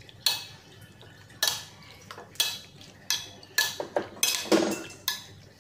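Chicken pieces being mixed into a marinade on a ceramic plate, giving sharp clinks and knocks against the plate, about nine at uneven intervals, several bunched together near the end.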